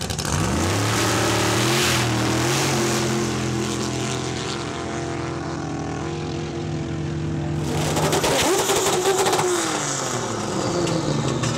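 Drag race car launching and accelerating hard, its engine note climbing in steps through quick gear changes, then running on steadily and fading as it pulls away. About eight seconds in, a different drag car's engine is heard close by, its revs rising, falling and rising again.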